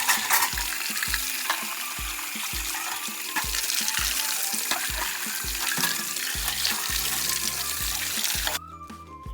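Water running steadily, as from a tap filling a container such as the chicks' waterer, cutting off sharply near the end. Background music with a steady beat plays underneath.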